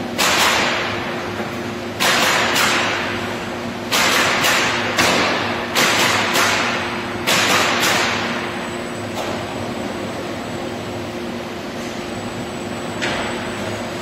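Robotic pneumatic nailers firing into wood panels: about ten sharp shots at uneven spacing over the first eight seconds, each dying away over about half a second, then two fainter ones later. A steady machine hum runs underneath.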